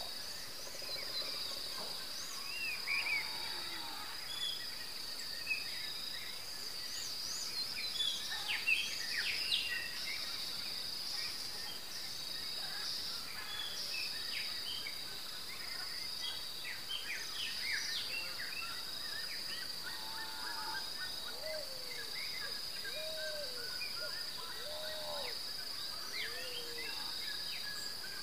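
A continuous high-pitched insect trill, with many short chirps and calls from other animals scattered over it.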